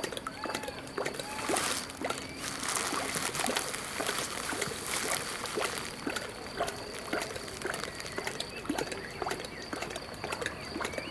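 Lion lapping water with its tongue in a long drinking session: a continuous, irregular run of wet slurping laps.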